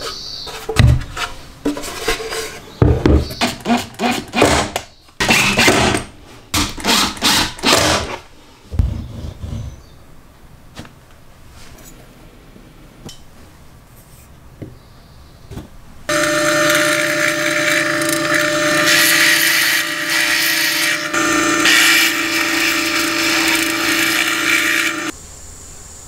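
A run of irregular wooden knocks and clatters as plywood parts are handled and fitted together. After a pause, an electric drill runs at a steady speed for about nine seconds, boring a hole in 15 mm plywood, and stops abruptly.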